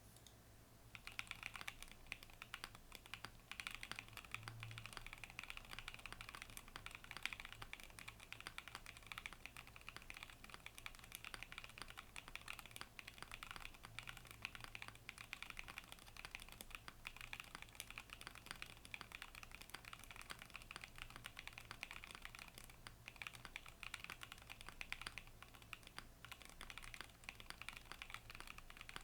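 Continuous fast typing on an SBL60 mechanical keyboard with stock, unmodded Gateron Cream Soda switches on a UHMWPE plate with no foam inside the case: a dense run of key clacks starting about a second in.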